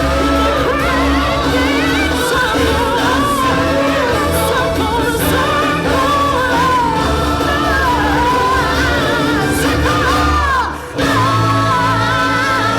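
Stage-show music with singers over a steady bass, the sung melody rising and falling; it breaks off for a moment near the end and starts again.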